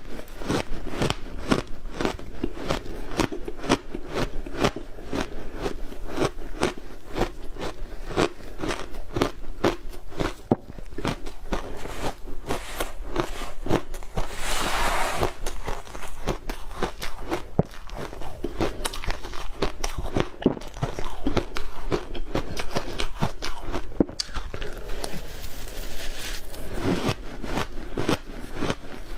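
Ice being bitten and chewed close to the microphone: rapid, continuous crunches, several a second, with one longer grinding crunch about halfway through.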